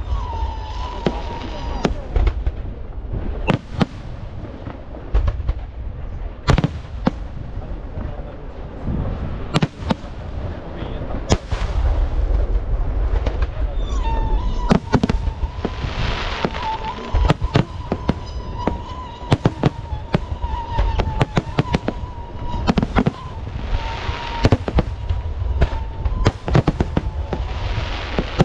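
Aerial fireworks shells bursting in a continuous, irregular barrage of sharp bangs and deep booms, several a second at times.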